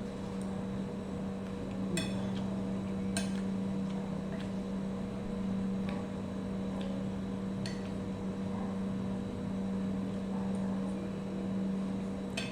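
Metal utensils clinking against a plate several times, over a steady low hum.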